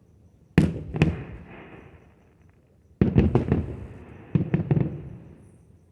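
Aerial fireworks bursting: two sharp bangs about half a second apart, then two quick clusters of several bangs, about three and four and a half seconds in, each trailing off in a rumbling echo that fades.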